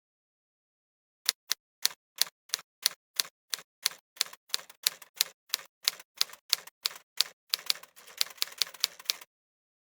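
A run of typewriter-like key clacks, about three sharp strikes a second, coming faster and crowding together near the end before stopping abruptly.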